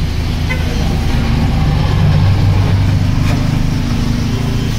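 Steady low mechanical hum, a little louder in the middle, over a background of noise.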